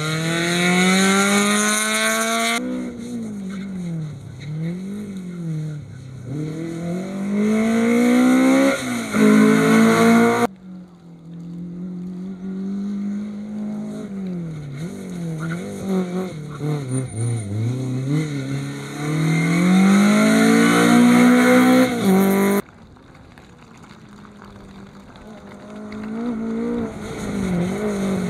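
Rally cars driven hard, engines revving up and dropping back over and over as they change gear and lift off for corners. The sound breaks off abruptly three times as it moves from one pass to the next.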